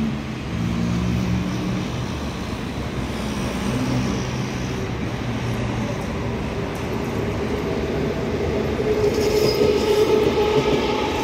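Electric passenger train hauled by an Alstom E-1450-series locomotive approaching and starting to pass, its rumble growing louder from about eight seconds in, with thin high squealing tones from the wheels. A low steady hum fades out in the first few seconds.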